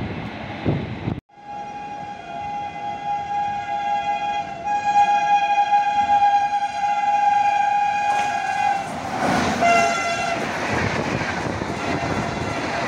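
Indian Railways locomotive horn sounding one long steady blast of about seven seconds, then a brief second toot. The train then rushes past with its wheels clattering on the rails.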